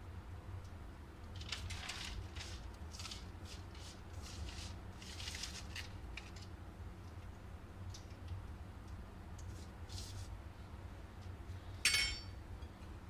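Crisp browned onions crumbled and scattered by hand over the rice in an aluminium pot: a run of short, dry rustles, then one sharp, ringing metallic clink near the end.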